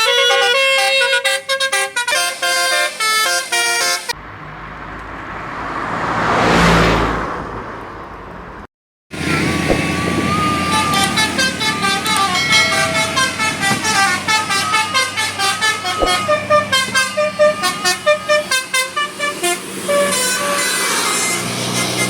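Multi-tone 'telolet' bus horn playing a quick stepped melody, then a vehicle passing close by as a rush of engine and tyre noise that swells and fades. After a brief cut, a telolet horn plays a longer, busier tune of many quick notes over a low engine hum.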